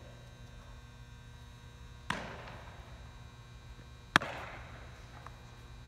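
A baseball smacks into a leather fielder's glove about four seconds in, a sharp pop that echoes through the big hall. A fainter echoing crack comes about two seconds before it, over a steady low hum.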